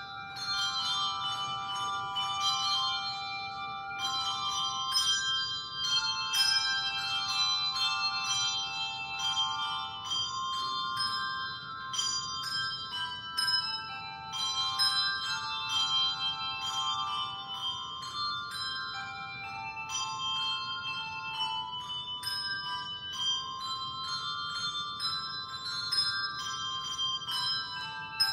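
A handbell quartet playing a tune: bells rung one after another in quick succession, each note ringing on and overlapping the next.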